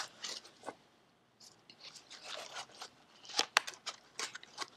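Gloved hands handling a cardboard test-kit box and removing a paper absorbent pad: scattered rustling and light clicks, with a brief lull about a second in and the sharpest clicks about three and a half seconds in.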